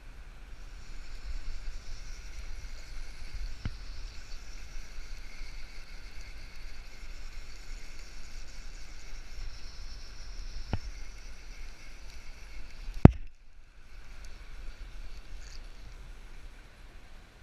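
Steady rush of flowing river water with a low rumble, broken by a few sharp knocks, the loudest about thirteen seconds in and followed by a brief dropout.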